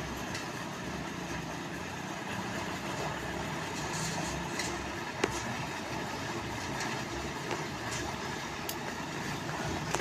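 An engine running steadily, with a few faint knocks.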